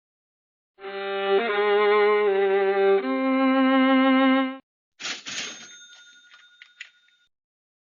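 A short phrase of bowed string music: about four held notes with vibrato, stopping suddenly. Then a single ringing metallic strike, like a bell, that fades over about two seconds.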